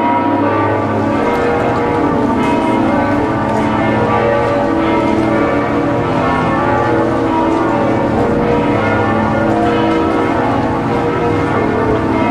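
Church bells ringing together in a continuous peal, many overlapping tones ringing on at a steady, loud level.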